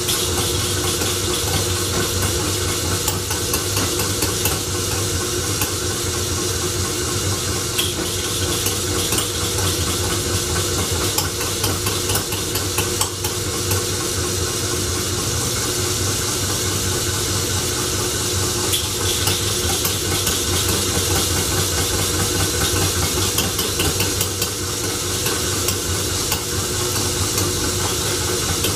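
Homemade Scotch yoke flywheel engine being turned over on a belt by an electric motor with its ignition on, not yet running on its own. It gives a steady hum and hiss with scattered light clicks. Its first trial run still has timing, choke and possibly compression issues to work out.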